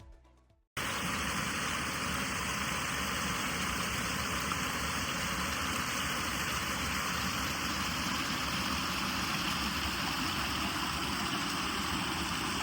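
Steady rush of a waterfall: an even wash of falling water that cuts in abruptly about a second in, after the tail of some background music.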